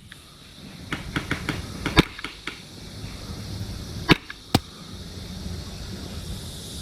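Airsoft gunfire: a cluster of light clicks about a second in, a loud sharp snap about two seconds in, and two more snaps close together around four seconds in.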